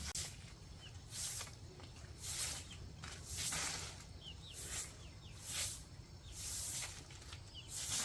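Repeated rustling, brushing strokes, roughly one a second, with a few faint, short bird chirps.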